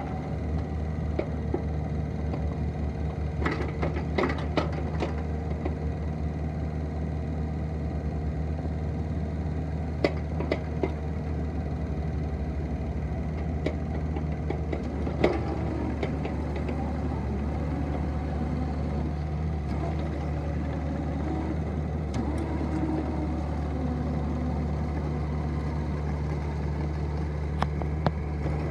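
Kubota KX71-3 mini excavator's diesel engine running steadily under the hydraulic work of the boom and bucket, with a few sharp metallic knocks scattered through.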